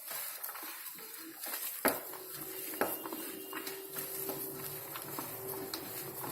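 A spoon knocking and scraping lightly against a mixing bowl as mashed potatoes are mixed with spices into a dough: a few scattered clicks, the sharpest about two seconds in.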